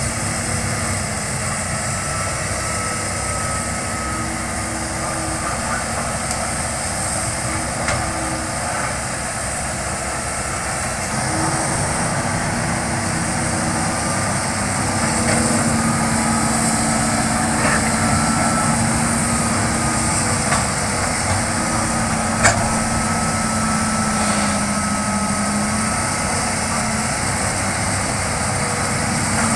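Hitachi crawler excavator's diesel engine running steadily as the machine works, with a steady whine that shifts in pitch now and then. A single sharp knock sounds about three-quarters of the way through.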